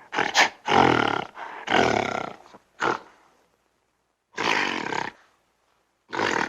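Gorilla giving a series of about six harsh calls, each under a second long, with a gap of about a second midway.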